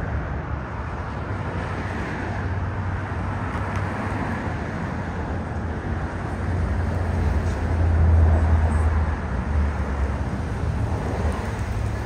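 Road traffic: a steady low hum of vehicles, swelling as one passes louder about two-thirds of the way through.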